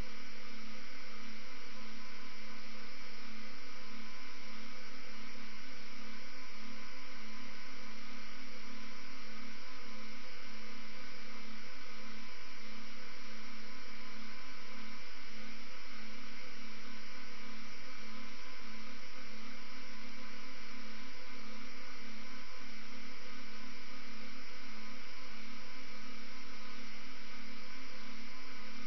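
Steady electrical hum and hiss with several fixed tones, unchanging in level throughout. It does not rise or fall as the airliner takes off, so it is recording noise rather than the aircraft's engines.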